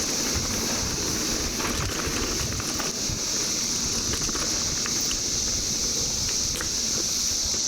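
Chorus of 17-year periodical cicadas: a steady, high-pitched drone that does not let up, over a low rumble of wind and trail noise from a moving mountain bike.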